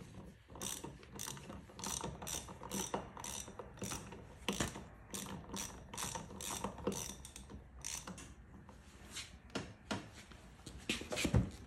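Pittsburgh 3/8-inch drive ratchet clicking in a steady run of back-strokes, about two a second, as a lug nut is cranked down tight. A louder knock comes near the end.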